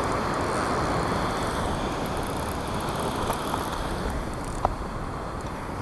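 Surf washing on the beach with wind: a steady rushing noise.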